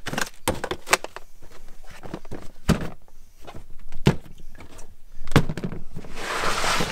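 A plastic storage box and its lid being handled and shut, with hiking boots set down on it: a string of separate knocks and thunks, then a longer scraping rustle near the end.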